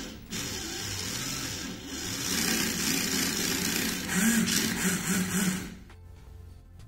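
Small brushed DC motor in a toy car chassis whirring under a homemade ESC's proportional throttle. It gets louder from about two seconds in and cuts off shortly before the end.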